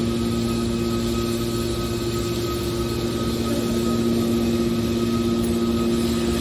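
Hydraulic metal baler's motor and pump unit running with a steady hum.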